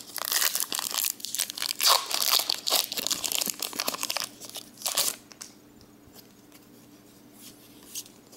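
Foil wrapper of a Pokémon trading card booster pack being torn open and crinkled by hand for about four seconds, with one sharp crackle about five seconds in, then quieter handling as the cards are slid out.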